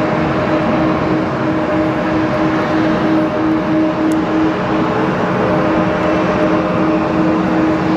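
A Boeing 777-300ER's GE90-115B jet engines running loud and steady: an even rush with a few steady humming tones over it.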